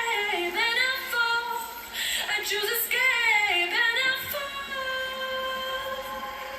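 Pop song with a female lead voice singing wordless runs that slide down and back up twice, then holding one long steady note near the end, played back through Yamaha NX-E270 bookshelf speakers.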